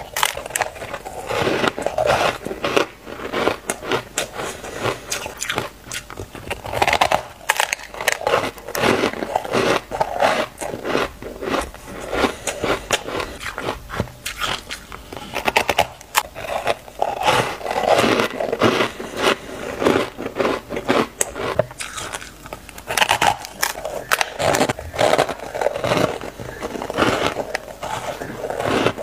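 A person biting and chewing a block of frozen ice with a powdery top, close to the microphone: an unbroken run of sharp, irregular crunches and crackles as the ice breaks between the teeth.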